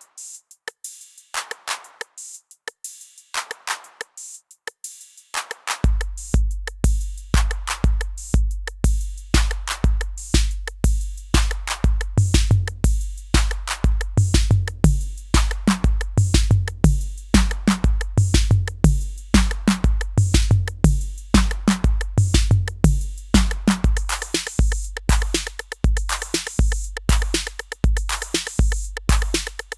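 Yocto, a DIY clone of the Roland TR-808 analog drum machine, playing a drum pattern. Sparse short hits open it, then the deep 808 bass drum comes in about six seconds in on a steady beat of about two a second, under busy hi-hats, with pitched lower drum hits through the middle.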